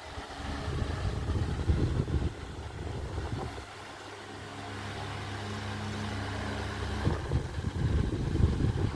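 Fujibin electric pedestal fan running: gusts of its airflow buffet the microphone as a low rumble, easing for a few seconds in the middle, where the steady hum of the fan motor shows through.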